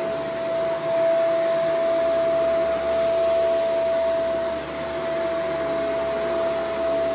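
Shark Vertex AZ2002 upright vacuum running over carpet: a steady motor whine over the rush of air.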